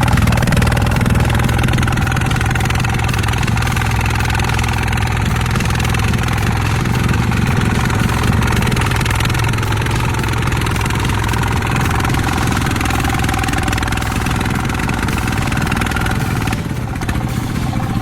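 A heavy vehicle's engine running steadily, with an even low drone.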